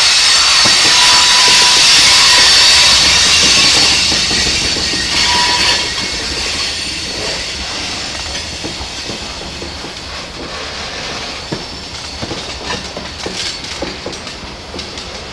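Loaded freight cars rolling past close by through a curve, their steel wheels squealing against the rails. The squeal is loudest for the first five seconds or so, then fades, leaving the clicks and knocks of wheels over rail joints.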